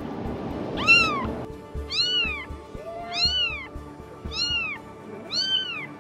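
Newborn kitten crying: five high-pitched mews, each rising and falling, repeated evenly about once a second. The cries are calling for its mother and are being used to lure her out.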